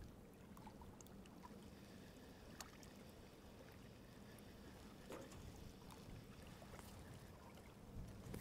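Near silence: faint water lapping and low background rumble, with a few small ticks.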